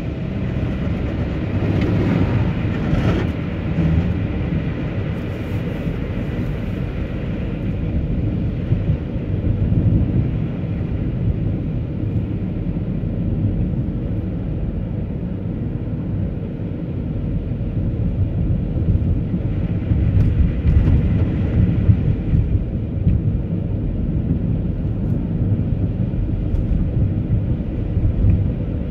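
Vehicle driving on a snow-covered road: a steady low rumble of tyres and engine, a little louder around two seconds in and again about twenty seconds in.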